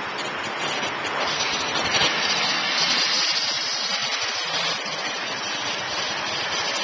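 Street traffic passing close by: a rushing swell of engine and tyre noise from a tractor-trailer truck and cars, building to its loudest about two to three seconds in, then easing off.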